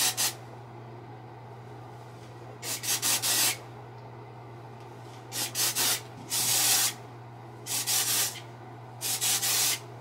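Aerosol can of texturizing dry shampoo sprayed in short pulses: about five clusters of quick hissing puffs a second or two apart, with one longer spray about halfway through.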